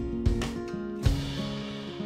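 Background instrumental music: held, plucked-sounding notes that step from one pitch to another, with a new set of notes struck about a second in.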